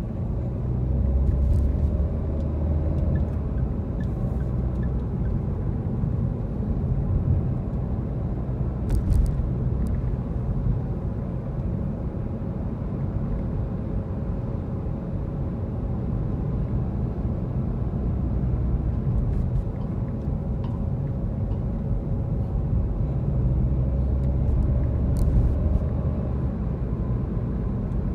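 A car driving steadily through city traffic: a continuous low engine and road rumble heard from inside the cabin, with a few faint ticks.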